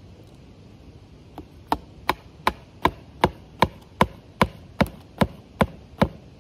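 A hammer striking the top of a tree-tube support stake, about a dozen sharp, evenly paced blows, roughly two and a half a second, starting a little after the first second: driving the stake down to hold the tube straight.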